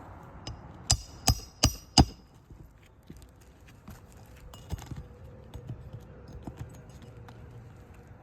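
Four quick hammer strikes on metal with a ringing note, about three a second, followed by lighter clicks and taps, as in roofing work on nails and shingles.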